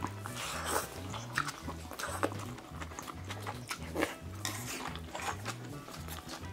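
Eating sounds at a close microphone: chewing and sharp mouth clicks and smacks, several a second, over background music with a repeating bass line.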